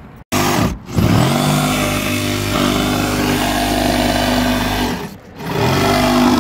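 Power saw cutting the sheet-metal roof jack: the motor spins up, runs steadily through the cut with a hissing metal-cutting noise, stops briefly about five seconds in, and spins up again.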